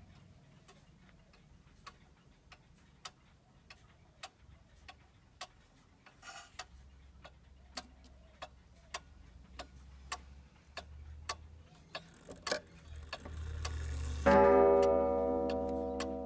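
Vintage pendulum wall clock ticking steadily, about one and a half ticks a second, with some scraping as its minute hand is turned by hand. Near the end the strike goes off once, a loud ringing note that slowly dies away.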